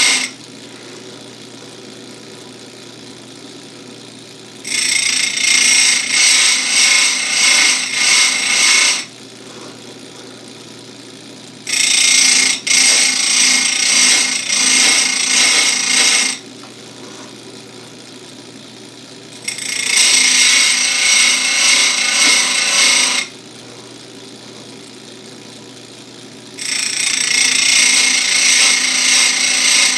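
Electric chainsaw chain grinder: its motor runs steadily while the grinding wheel is brought down onto the cutters of a full-chisel chain in four loud spells of about four seconds each, each spell pulsing as a short run of strokes, with quieter stretches of the motor alone in between.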